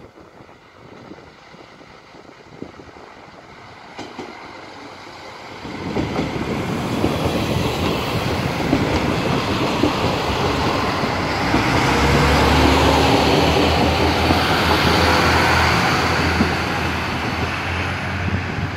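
A set of SNCF X73500 diesel railcars running past close by: faint wind noise at first, then about six seconds in the rumble of the wheels on the rails and the diesel engines rises sharply to a loud rush with rapid clattering. It peaks just past halfway and eases a little near the end as the train pulls away.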